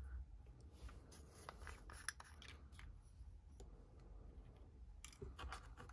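Faint small clicks and scrapes of a small glass jar of pigment powder being handled and its screw lid taken off.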